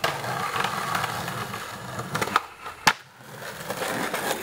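Skateboard wheels rolling on concrete, with two sharp clacks of the board about two and a half and three seconds in. After a short lull the rolling starts up again.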